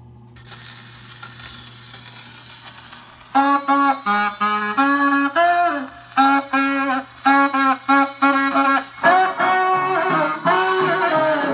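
Victor 8-30 Orthophonic acoustic console phonograph playing a 78 rpm shellac record. Surface hiss comes in as the needle enters the groove, then about three seconds in a tenor saxophone starts a riff in short repeated phrases, and the band plays fuller near the end.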